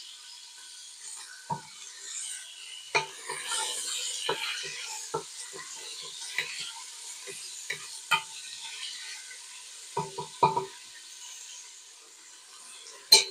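Chicken chunks sizzling in hot olive oil in a stainless steel pot. A wooden spatula stirs them, knocking and scraping against the pan every second or two.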